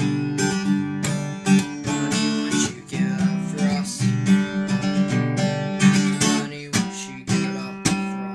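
Acoustic guitar strumming chords, with no singing: the instrumental close of a song.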